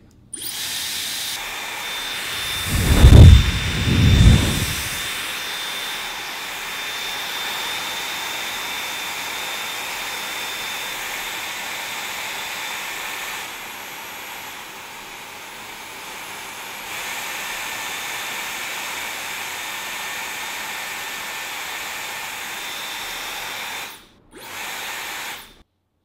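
Dyson Supersonic hair dryer running: a steady rush of air with a thin high whine. Two loud gusts of its airflow hit the microphone about three and four seconds in, it drops quieter for a few seconds in the middle, and it cuts out briefly near the end.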